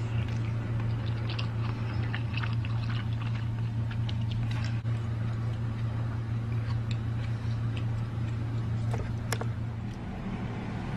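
Light clicks and scrapes of a metal fork against a plate while spaghetti is eaten, over a steady low hum.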